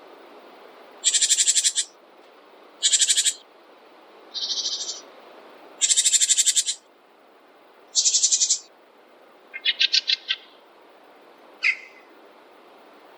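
A small songbird singing short, rapid, high trills, about seven phrases a second or two apart, over a steady faint hiss.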